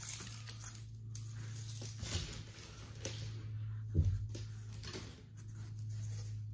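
Cardboard packing and plastic strapping being handled: rustling and scraping, with a knock about four seconds in.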